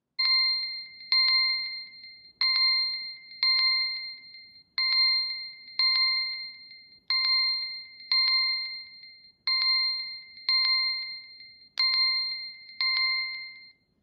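Redmi smartphone's timer-finished alert: a bell-like ding struck twice about a second apart, the pair repeating about every 2.3 seconds, six pairs in all, each ding ringing out and fading.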